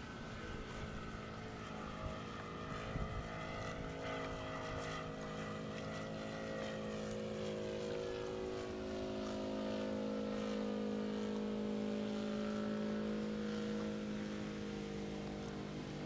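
Radio-controlled aerobatic model airplane in flight: a steady propeller-and-motor drone whose pitch drifts slowly as it manoeuvres, growing louder in the second half.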